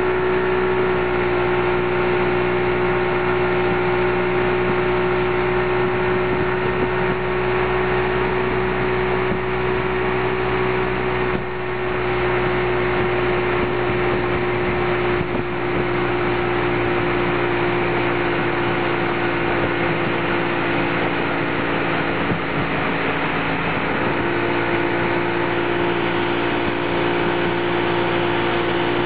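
Tow boat's engine running steadily at speed, a constant drone, with the hiss of wind and water under it.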